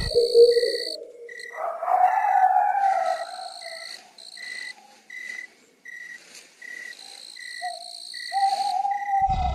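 Night insect ambience: crickets chirping in a regular pulse about twice a second, with higher steady trilling that comes and goes. A longer, lower wavering call sounds through it, strongest in the first half and again near the end.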